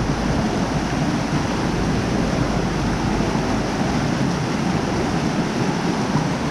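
Steady rush of a small mountain trout stream running over rocks, with a low wind rumble on the microphone that eases about four seconds in.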